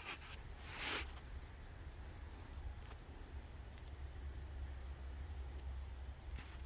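Insects chirping, faint and steady, over a low steady hum, with a brief rush of noise about a second in.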